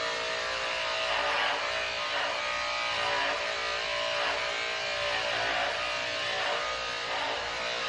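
Electric dog-grooming clippers running with a steady hum while shaving a border collie's coat short.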